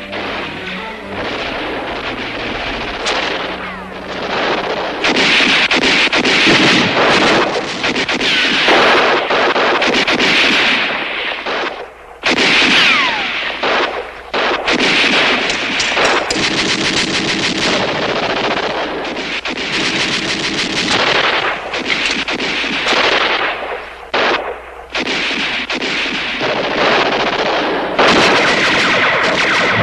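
A firefight: dense, rapid rifle and pistol shots, with bursts of automatic fire, overlapping almost without a break and briefly letting up a few times.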